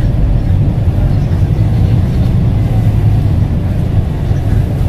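Scania K230UB bus heard from inside the cabin while under way: its rear-mounted nine-litre five-cylinder diesel and ZF automatic drivetrain running steadily, a loud, low, even sound with no gear change.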